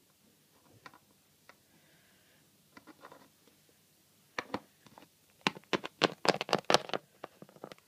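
Hands moving small plastic Littlest Pet Shop figurines: light taps and clicks against a surface, a few scattered at first, then a quick run of them over the last few seconds.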